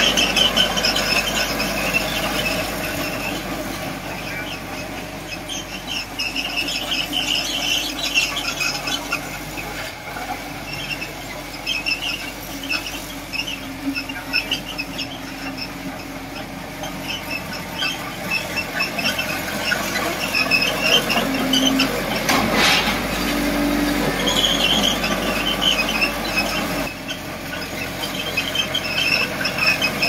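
Crawler bulldozer moving, its steel tracks squealing in repeated high-pitched bursts over the steady running of its diesel engine.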